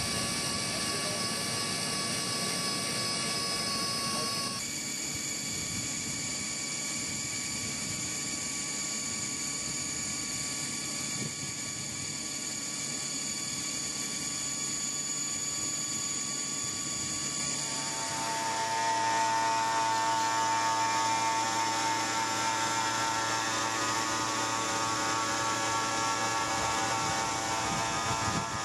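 CRS-V sonic drilling rig running, its sonic head vibrating and turning steel casing down into the ground: a steady machine drone made of many steady tones. The mix of tones shifts about 4 seconds in and again about 18 seconds in, where it grows a little louder.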